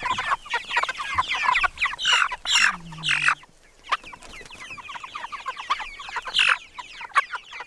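A flock of meat chickens, about six weeks old, peeping and clucking together in a dense run of short chirps. A few louder squawks stand out about two seconds in and again near six and a half seconds.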